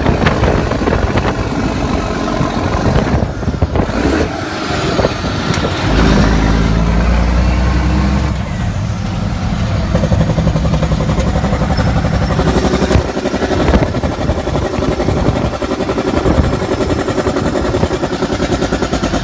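Mack RD truck's diesel engine running while driving, its note shifting a few times as the load and engine speed change.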